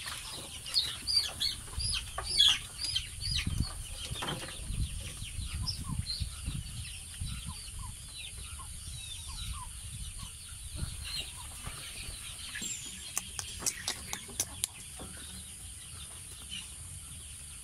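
Chickens calling: quick, high peeps that fall in pitch, mixed with clucks, thickest in the first few seconds and thinning out after. A run of sharp clicks comes about three-quarters of the way through.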